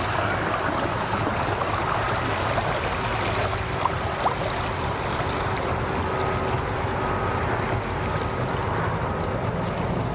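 Suzuki outboard motor running slowly as the skiff idles in, a steady low hum, with two brief clicks about four seconds in.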